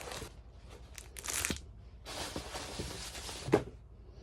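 Packaging being torn open and crinkled by hand in bursts, with a sharp click about three and a half seconds in.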